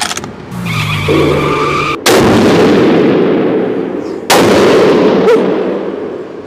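Two heavy rifle shots about two seconds apart, the first a 300 PRC rifle firing about two seconds in. Each shot is loud and leaves a long echo that fades in the enclosed indoor range.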